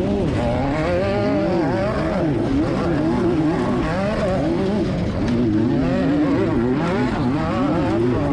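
Off-road race car engine revving, its pitch rising and falling again and again as the throttle is worked, over a constant rough rumble.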